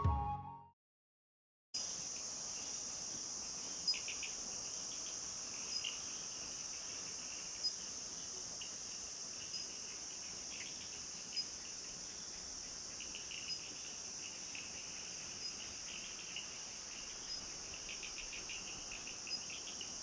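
A steady, high-pitched insect chorus with scattered louder chirps. It starts about two seconds in, after music cuts off and a moment of silence.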